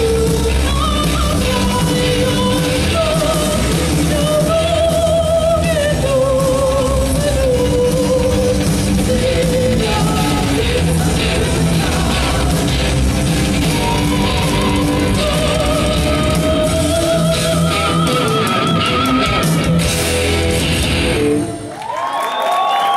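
Live heavy metal band: a woman singing a long melodic line with wide vibrato over electric guitar, bass and drums. The band stops suddenly near the end and the crowd starts to cheer.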